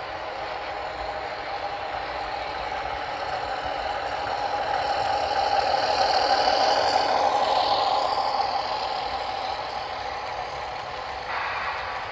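HO scale Southern Pacific ALCO PA model diesel locomotive and its freight cars running past on the track, getting louder as the locomotive comes alongside about six seconds in, then easing as the cars roll by. Near the end there is a sudden step up in the rolling noise.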